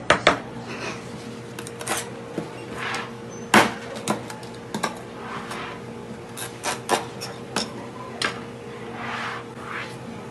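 Large kitchen knife knocking and cutting against a plastic cutting board as a flatfish is trimmed, with irregular sharp knocks and short scraping sounds, over a steady kitchen hum.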